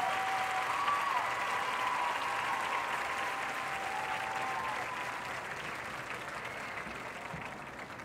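Stadium crowd applauding and cheering, with a few long drawn-out cheers early on the clapping, all slowly dying down.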